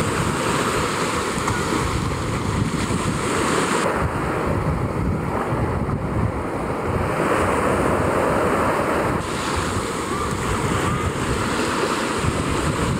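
Sea surf washing around the rocks, with wind buffeting the microphone in a steady low rumble. The mix changes abruptly twice, about four seconds in and again about nine seconds in.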